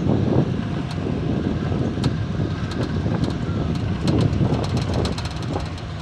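A vehicle driving slowly over an unpaved dirt road: a rough, uneven rumble of engine and tyres with wind buffeting the microphone, and a run of sharp clicks in the second half.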